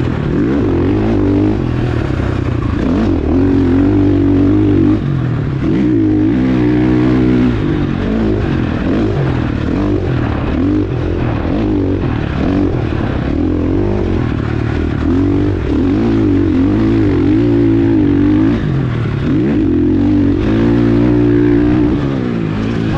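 KTM 450 SX-F four-stroke single-cylinder motocross engine under hard riding, its pitch rising and dropping again and again as the throttle is opened and shut through corners, jumps and gear changes.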